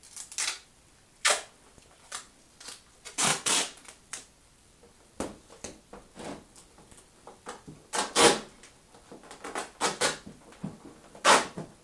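Hands handling and pressing down tape on a taped-up part: a string of irregular scraping, crinkling handling noises, some sharp and loud, with short quiet gaps between.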